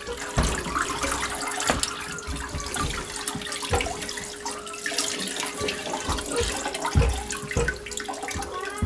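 Water splashing and trickling back into a plastic bucket as a soaked deer hide is lifted and wrung out by hand, with irregular splashes and knocks. A steady hum runs underneath.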